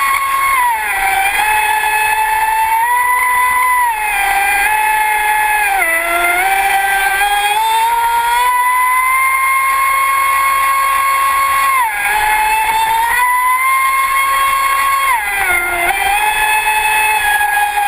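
Onboard sound of a Traxxas Spartan RC speedboat's electric drive whining at speed, its pitch dipping and climbing back several times, over the rush of water spray.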